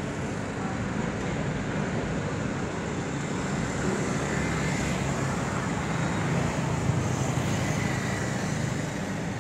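Steady low rumble of road traffic and heavy diesel engines, a little louder about six to seven seconds in.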